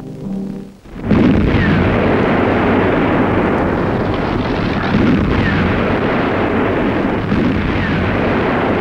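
Loud, continuous din of battle, artillery fire and shell explosions blurring into one roar, starting abruptly about a second in.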